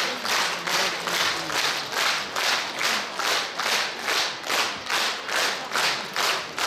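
Audience clapping in unison, a steady rhythm of about two claps a second.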